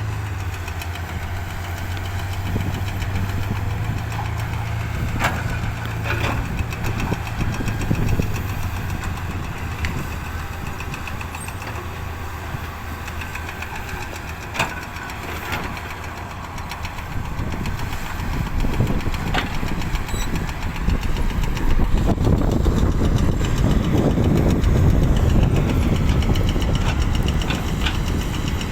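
Diesel engine of a heavy earthmoving machine running, with a few sharp knocks scattered through; it grows louder and rougher about two-thirds of the way in as the machine works harder.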